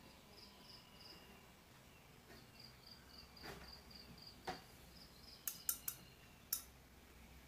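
Faint insect chirping: runs of high, evenly spaced pulses, about four a second, that stop and start. A few sharp clicks come in the second half.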